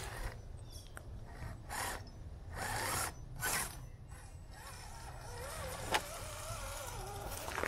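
Axial SCX10 III CJ7 1/10-scale electric crawler's motor and gears whining, the pitch wavering up and down with throttle as it crawls with the dig engaged. A few short scraping bursts come in the first half.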